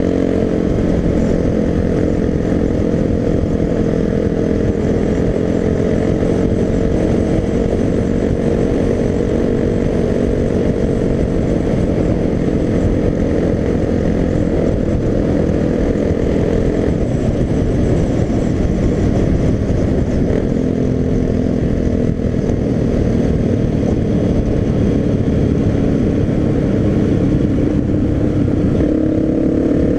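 Suzuki DR-Z250's single-cylinder four-stroke engine running at a steady cruising speed, its pitch climbing a little near the end, heard from the rider's helmet with heavy wind noise on the microphone.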